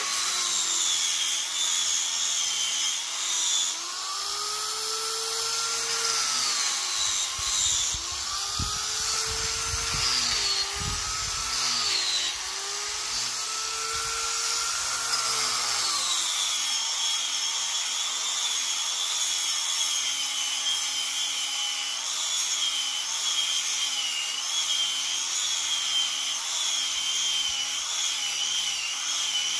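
Angle grinder fitted with a 120-grit velcro sanding disc, running against a jujube-wood slab: a high motor whine over the rasp of abrasive on wood. The pitch wavers throughout. In the middle stretch it dips and recovers in slow sweeps as the disc is pressed into the wood and eased off.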